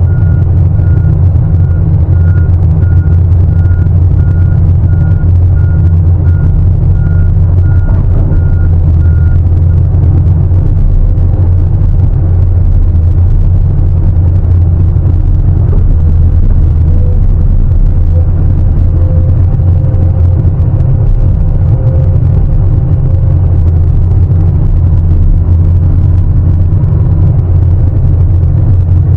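Heavy mining machinery's diesel engine running steadily and loud, with a reversing alarm beeping about twice a second that stops about a third of the way in.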